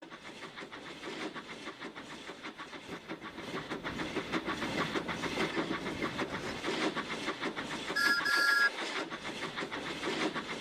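Train running with a rapid, even rhythmic clatter, and a short two-note whistle blast about eight seconds in.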